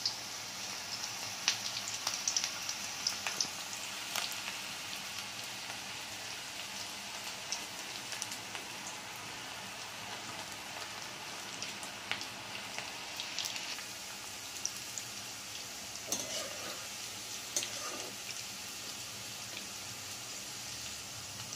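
Onion pakoda batter (gram flour and sliced onion) deep-frying in hot oil in a kadai: a steady sizzle with scattered crackles. The crackles are busiest in the first few seconds, as handfuls of fresh batter go into the oil.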